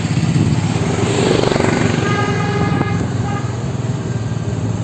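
Motor vehicle engine running close by, a dense low rumble that swells about a second in. A steady pitched tone sounds for about a second and a half from about two seconds in.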